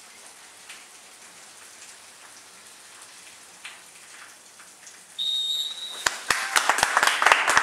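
A faint, even outdoor hiss, then a single high, steady referee's whistle blast about five seconds in that lasts nearly a second. Applause and clapping break out right after it and get louder toward the end.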